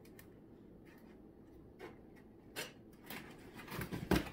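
Cardboard box being opened by hand: a few faint taps at first, then from about three seconds in a run of cardboard rustles and knocks, with a heavier thump near the end.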